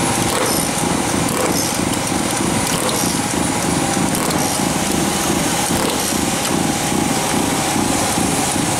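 Small engine of a mini speedboat running steadily at a constant level, with a fast, even flutter.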